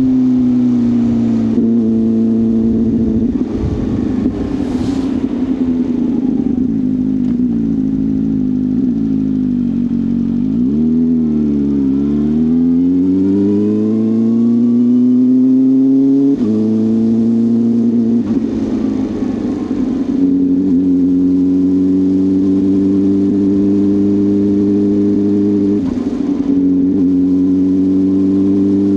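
CFMoto 500SR Voom motorcycle engine through an SC Project carbon slip-on exhaust, running under way. The engine note holds steady, sinks to a low point about ten to twelve seconds in, climbs again as it accelerates, drops suddenly at a gear change around sixteen seconds, then holds fairly steady.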